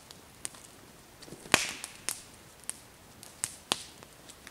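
Footsteps on the forest floor with dry twigs snapping underfoot: scattered sharp cracks, the loudest about a second and a half in.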